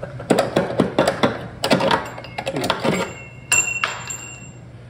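Ratchet wrench worked on a rusted, torch-heated leaf-spring shackle bolt: a string of irregular metal clicks and knocks, then one sharp ringing metal clink about three and a half seconds in.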